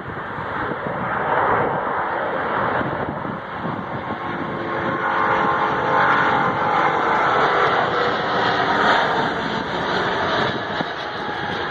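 Jet airliner's engines at takeoff power as it accelerates down the runway on its takeoff roll. A loud rushing jet noise builds over the first few seconds, holds strongest until about nine seconds in, then eases a little.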